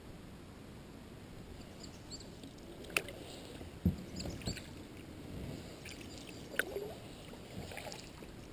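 Paddling a skin-on-frame canoe: paddle strokes and water lapping, with a few sharp knocks of the paddle against the boat, the loudest a low thump about four seconds in.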